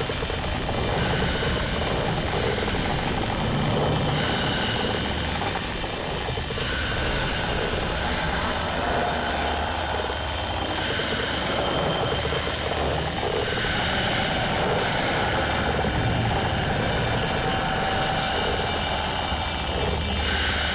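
Dense, distorted noise over a low rumbling hum, with higher tones that switch on and off every second or two: a harsh, mechanical-sounding drone of the kind used as a 'cursed' horror sound file.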